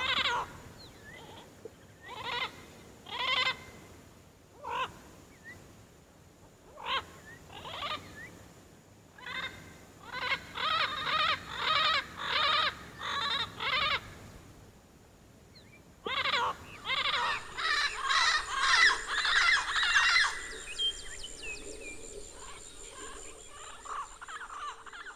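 An animal calling over and over. Single calls come every second or two at first, then quick runs of calls follow twice, and the calling fades near the end.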